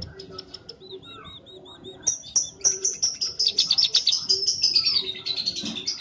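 Scaly-breasted munia singing. It begins with soft, rapid high notes and a short row of repeated arched notes, then from about two seconds in gives a louder, dense run of fast high notes that slides lower near the end.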